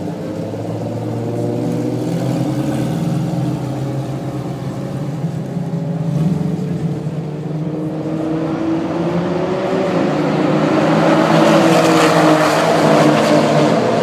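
Performance car engines running together, their notes slowly shifting in pitch; about nine seconds in, one gets louder as a car accelerates nearby, peaking a few seconds later.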